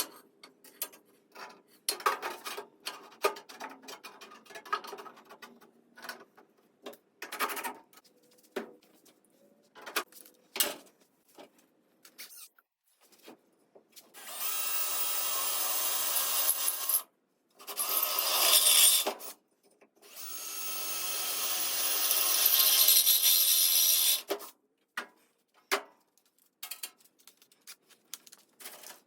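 A power drill runs three times through sheet steel, drilling bolt holes in a floor pan. The first two runs are short and the third is the longest and loudest. Before them come scattered knocks and clatter from metal parts being handled.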